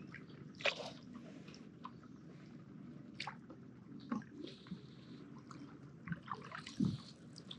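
Kayak paddle strokes on calm water: a handful of irregular drips and small splashes as the paddle blades dip and lift, over a steady low background.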